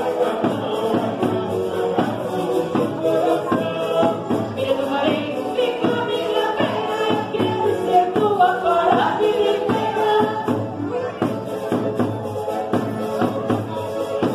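Portuguese folk dance music: several voices singing together over accompanying instruments, with a steady percussion beat.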